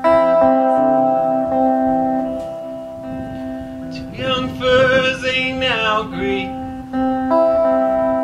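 Solo hollow-body electric guitar playing slow, ringing chords, with a man singing a short phrase about four seconds in.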